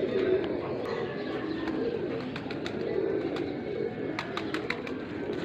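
Domestic pigeons cooing in low, rolling coos, with a quick run of sharp clicks about four seconds in.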